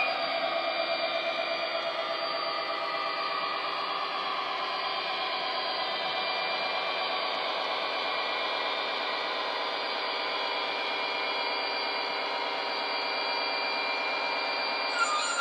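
Model locomotive's DCC sound decoder playing a Class 57 diesel engine sound file (a recorded EMD two-stroke) through small on-board speakers. It is a steady engine drone with a whine as the locomotive runs, easing slightly in pitch in the first second.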